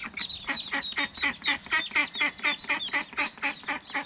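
A mother duck quacking in a fast, steady series of short calls, about five a second, calling her ducklings down to her on the water, with the ducklings' thin high peeping over it.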